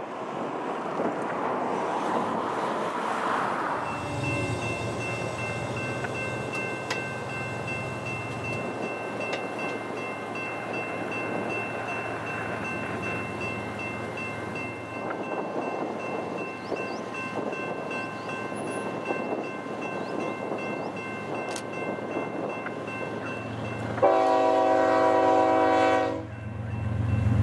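BNSF diesel-hauled double-stack freight train approaching, a steady rumble with a low engine drone and a thin high whine. Near the end the lead locomotive's air horn sounds one loud blast of about two seconds.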